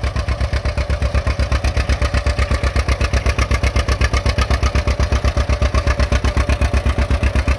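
John Deere AR two-cylinder tractor engine chugging along at a steady, even beat of about seven pops a second, pulling a plow that is set to cut deep in second gear.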